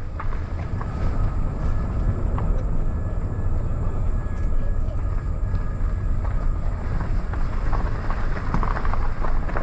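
Steady low rumble of a vehicle driving on the road: engine and tyre noise at cruising speed.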